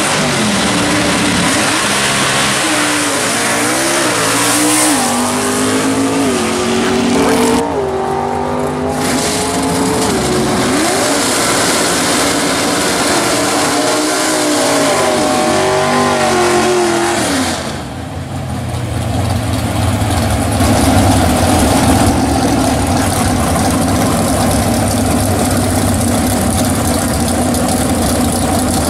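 V8 drag cars launching and pulling down the strip. The engines climb in pitch through several gear changes, dropping back at each shift, then fall away. After about 18 seconds, V8 muscle-car engines idle with a steady low rumble.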